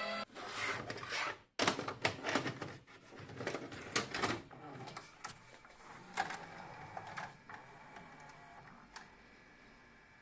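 Sony DA Pro 4 Head VHS video cassette recorder's tape mechanism clicking and clattering as it loads and threads a cassette. The clicks and clunks come thick and fast for the first few seconds, then thin out and fade.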